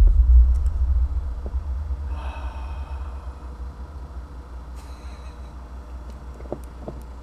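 A deep, low rumble, loudest at the start and fading over about three seconds into a faint low hum.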